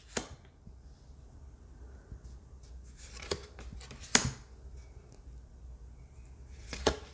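Tarot cards being handled in the hand, one card moved off the front of the deck at a time: four short, sharp card snaps spaced a second or more apart, over a faint low room hum.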